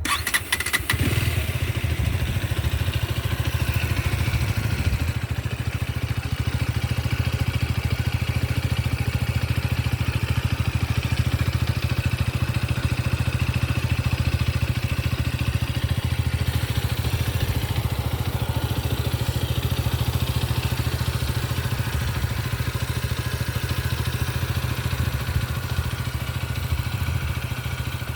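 KTM 125 Duke's single-cylinder four-stroke engine on its stock exhaust, catching in the first second and then idling steadily.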